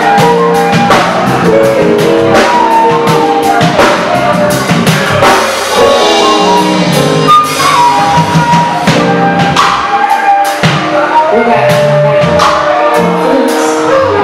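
Live band playing, with a concert flute carrying held melody notes over electric keyboard and steady drum hits.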